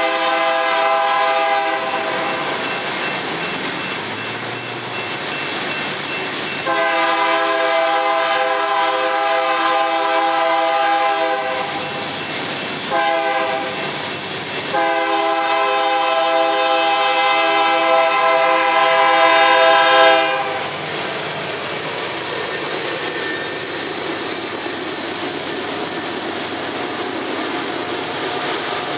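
Locomotive air horn on the lead BNSF AC44CW sounding the grade-crossing signal: the end of a long blast, then another long blast, a short one and a final long one. After the horn stops, the locomotives and coal hopper cars roll past with steady wheel rumble and clacking over the rail joints.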